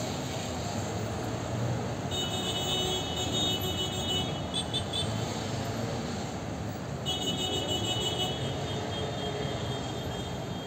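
Steady city street traffic: a mix of car, van and scooter engines and tyre noise at a busy intersection. A high-pitched tone sounds twice over it, for about three seconds each time, starting about two seconds in and again around seven seconds in.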